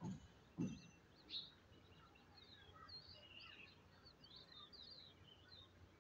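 Small birds chirping and twittering, many short quick chirps overlapping. Two short, low sounds stand out within the first second, louder than the chirping.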